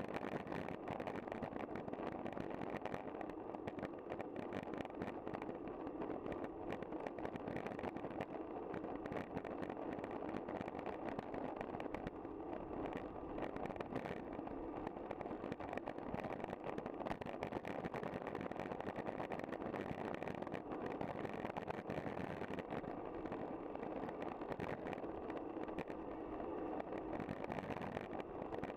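Steady rushing road and wind noise from a bicycle ride, with no changes or distinct events.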